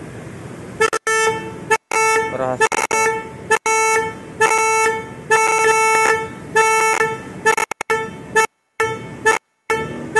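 Hyundai Creta's horn sounding in repeated short blasts at an uneven rhythm, starting about a second in. It is set off remotely by the Bluelink phone app's alarm (horn and lights) command.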